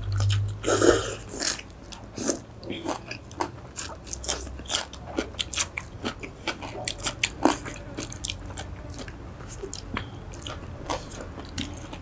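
Close-miked eating sounds: wet chewing, smacking and crunching of spicy seafood papaya salad with seaweed and rice noodles, a rapid run of small clicks and crackles. A longer slurp comes near the start.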